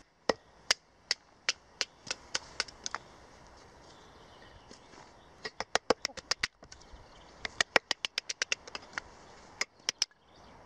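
Wooden baton striking the spine of a knife to drive the blade into an upright branch, chopping the wood away all round: a series of sharp knocks, about three a second at first, then faster runs of strikes after a short pause.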